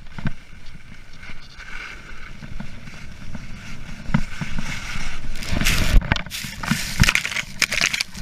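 Edges scraping and chattering over snow during a fast run downhill. It grows louder in the second half, with a couple of sharp thumps.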